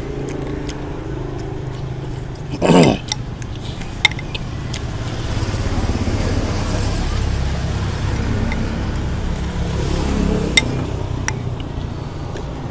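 Road traffic: a vehicle's engine rumble swells and fades in the middle. Spoons clink against ceramic soup bowls a few times, and there is one short loud burst about three seconds in.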